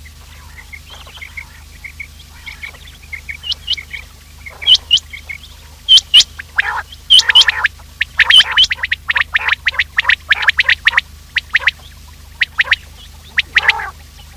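Quail calling: soft, quick chirping notes at first, then from about five seconds in loud, sharp notes repeated in quick clusters, as used in a lure call to draw quail in.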